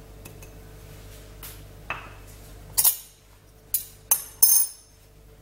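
Kitchen clatter: about five sharp clinks and knocks as small cups and containers are handled and set down on a granite worktop beside a glass mixing bowl, ending in a longer rattle near the end.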